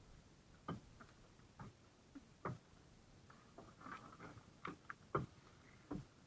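Faint handling sounds of a woven plastic sack and rope: scattered light knocks and clicks, roughly one a second, with some rustling midway.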